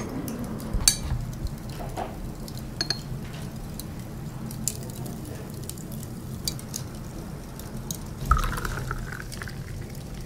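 Scattered light clicks and taps of a metal spoon and chopsticks against lacquer and ceramic tableware. Near the end there is a short louder splash as beer is poured from a bottle into a glass.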